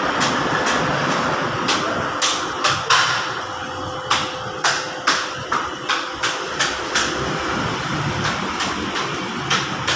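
Irregular sharp clicks and knocks of tools and transmission parts being handled during a CVT overhaul, over a steady background noise with a faint constant hum.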